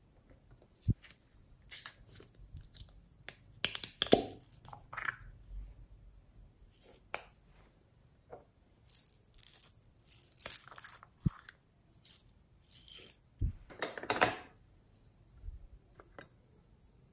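Scattered taps, clicks and small rattles of hands handling small plastic containers and shaking sprinkles onto slime in a glass bowl, with a longer rustling rattle about fourteen seconds in.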